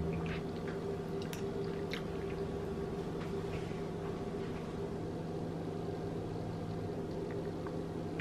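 Soft eating sounds: a fork cutting into a baked stuffed tomato on a plate, with a few faint clicks and chewing in the first few seconds, over a steady low hum.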